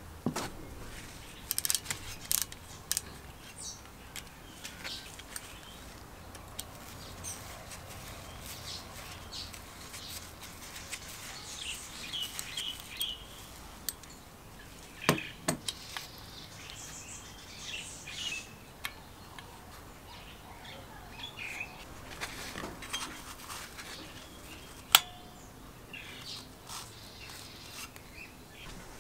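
Scattered light metallic clicks, clinks and ticks of a hand ratchet and small steel ignition parts as the breaker points and condenser are unbolted from a small Briggs & Stratton engine. One sharper click stands out about 25 seconds in.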